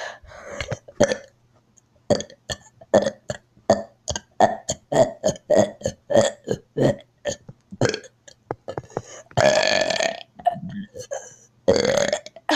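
A child forcing out burps one after another: a rapid string of short burps, about three a second, then two longer drawn-out burps near the end.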